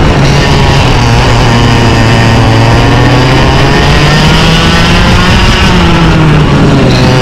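Two-stroke cadet kart engine racing at full song, loud, its pitch rising and falling as the kart accelerates and lifts through the corners.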